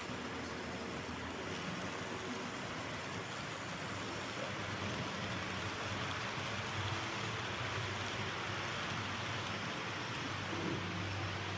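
Model freight train running past behind model diesel locomotives: a steady noise of wheels rolling on the track with a low hum underneath.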